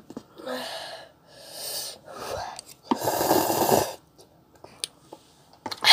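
A person's breath in several noisy bursts over the first four seconds, the longest and loudest about three seconds in, then only a few faint clicks.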